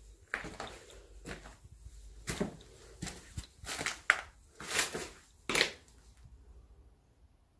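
Footsteps crunching over rubble and plaster debris on a derelict floor: a string of irregular crunches and scuffs, the loudest in the middle, stopping about three-quarters of the way through.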